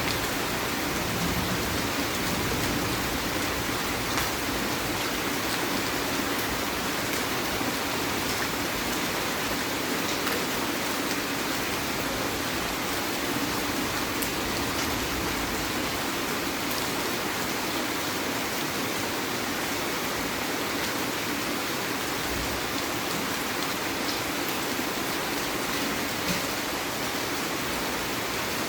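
Heavy rain falling: a steady, even hiss with scattered drops ticking on surfaces.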